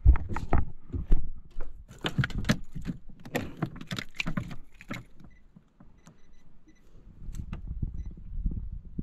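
A metal fish lip grip clicking and jangling as a small caught fish is handled and clamped on a boat deck: a dense run of short clicks, knocks and rattles that thins out a little past halfway, with a few more clicks near the end.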